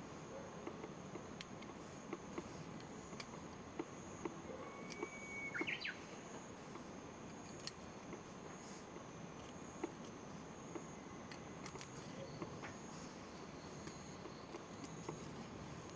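A steady high-pitched insect drone, with a Japanese bush warbler singing once about five seconds in: a held whistled note, then a quick rising flourish. Faint scattered clicks also sound.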